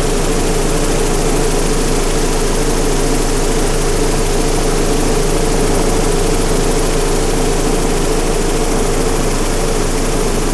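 Giant GB3 vibratory tumbler running, its offset-weight drive on springs shaking a bowl of triangular deburring media: a loud, steady drone with one constant tone over the dense churning noise of the media, unchanging throughout.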